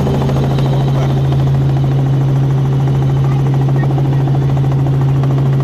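Helicopter running, a loud steady drone with a fast even pulsing from the rotor.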